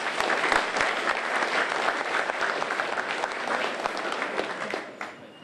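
Audience applauding: many hands clapping steadily, then dying away about five seconds in.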